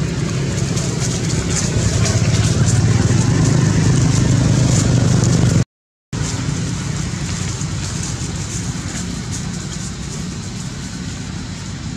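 A steady low engine-like hum and rumble, louder in the first half. The sound cuts out completely for about half a second about six seconds in.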